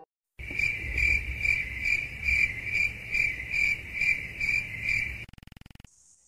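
Stock cricket-chirping sound effect: a steady, high-pitched chirp repeating about twice a second, cut in and cut off abruptly, stopping about five seconds in.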